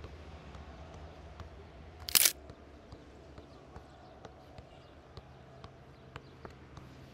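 A football being juggled by a seated player, tapped up off the boot again and again in light, quick knocks about twice a second. One much louder sharp knock comes about two seconds in, over a low steady hum.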